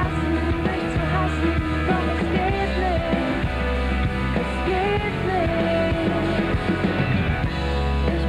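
Pop-rock band playing an instrumental passage of the song between the lyrics, with a gliding lead melody over a steady bass.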